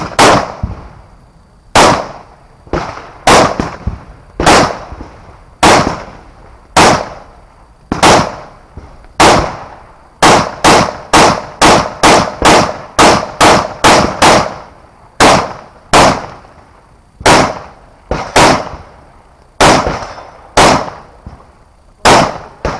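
Rifle shots fired through an action rifle course of fire: about thirty sharp cracks, each with a short echo. The pace is uneven at first and at the end, with a rapid string of about three shots a second in the middle.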